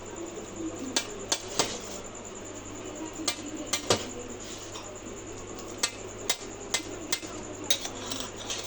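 A cutting utensil clicking and knocking against the metal pizza pan while a baked pizza is sliced: about a dozen sharp, short knocks at uneven intervals over a low steady hum.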